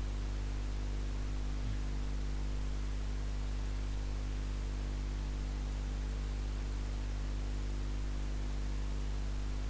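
Steady electrical mains hum with a constant hiss: a low buzz with a stack of even overtones that holds unchanged throughout.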